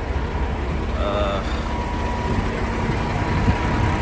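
Semi-truck tractor driving without its trailer, its engine a steady low rumble, with a brief pitched chirp about a second in.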